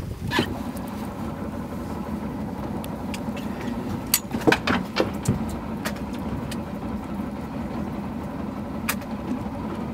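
Small fishing boat's engine idling steadily, with a few sharp clicks and knocks about four to five seconds in and once more near the end.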